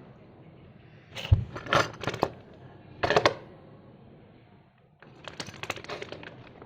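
Fluffy slime being squeezed and stretched by hand, giving sticky clicks and pops: two short bursts early on, then a run of small crackling clicks near the end.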